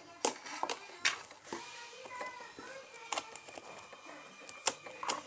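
Homemade slime being squeezed and poked by hand, giving scattered sharp clicks and pops, about five in all.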